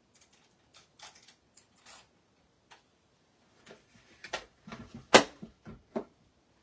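Plastic clicks and knocks as the folding platforms of a die-cutting machine are opened out, a quick cluster of them in the last part with one sharp knock the loudest. A few faint handling clicks come before.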